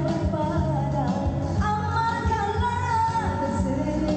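A woman singing a melodic pop song into a microphone, with long held notes, over a backing track with a steady beat.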